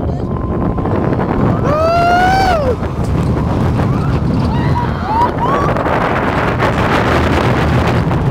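Riding aboard De Python steel roller coaster: wind rushing over the microphone and the train rumbling along the track. About two seconds in a rider lets out one loud scream that rises and falls, followed by a few short yelps.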